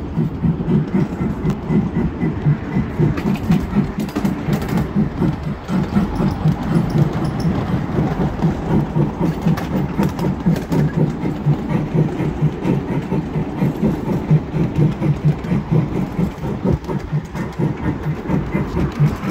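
Miniature ride-on train running along its track, heard from aboard: a steady, quick rhythmic clatter of wheels and running gear.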